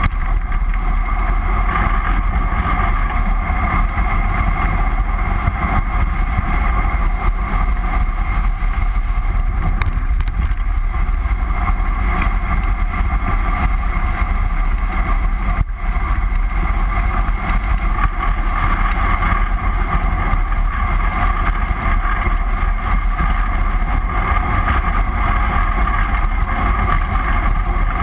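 Steady, loud wind noise buffeting a bike-mounted GoPro's microphone as a bicycle descends at speed, with a brief dip a little past halfway.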